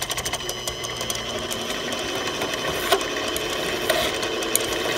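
Central Machinery benchtop mini lathe running, its chuck spinning a bolt while a hand file scrapes against the threaded end to chamfer the edge and clean up the threads.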